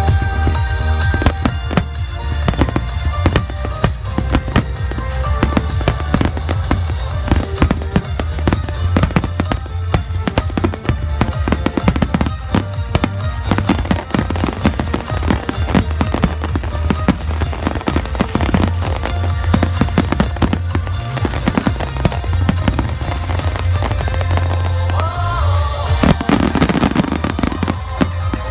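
Aerial firework shells bursting in rapid, continuous succession, many bangs and crackles overlapping, with music playing throughout.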